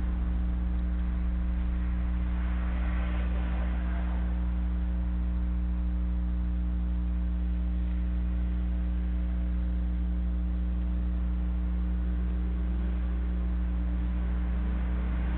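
Steady low electrical hum with several steady overtones, unchanging throughout.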